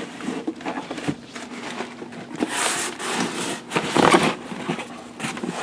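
Cardboard rubbing and scraping as a long shrink-wrapped box is slid out of a shipping carton, with rustling and a few sharp knocks.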